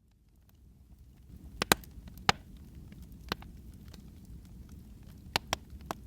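Wood fire crackling in a fireplace: sharp, irregular pops over a low, steady rumble, fading in at the start.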